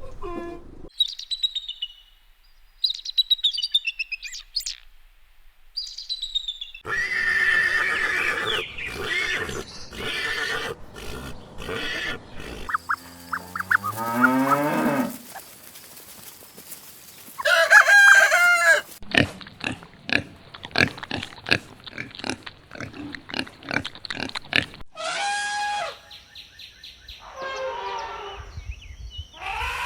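A string of different animal calls cut one after another: high chirping at first, then a variety of louder calls and noises, with a rising pitched glide about halfway through.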